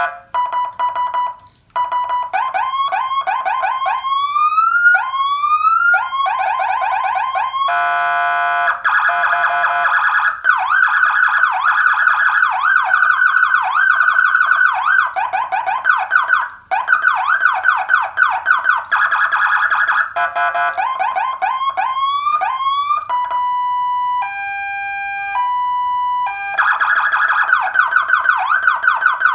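Electronic vehicle siren module (200 W CJB200 with Landun/Whelen tones) stepping through its tones. It gives rising wails, a buzzing horn blast, a rapid yelp of several sweeps a second, and a two-tone hi-lo near the end, with brief cut-outs as it switches between tones.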